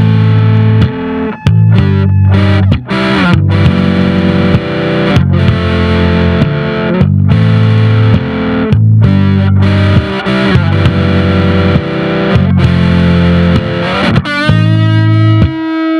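Electric guitar played through distortion, a blues in A minor: rhythmic chords and riffs over heavy low notes with short breaks between phrases, and a note sliding or bending upward near the end.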